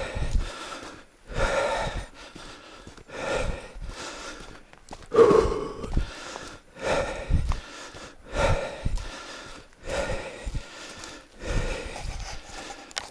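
A man breathing hard after running, a loud heavy breath roughly every one and a half to two seconds.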